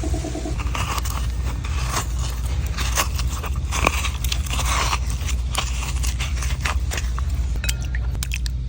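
A knife cutting and scraping a coconut: an irregular run of sharp cuts and crunching scrapes, over a steady low hum.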